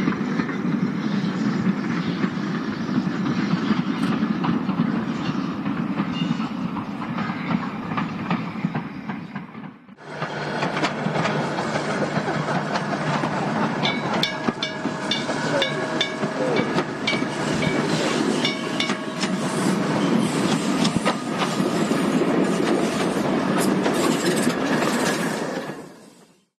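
Steam tank locomotive working a short passenger train, its steam exhaust over the rumble of the coaches on the rails. The sound drops out briefly about ten seconds in, then returns with sharp wheel clicks over rail joints and some squealing, and fades out near the end.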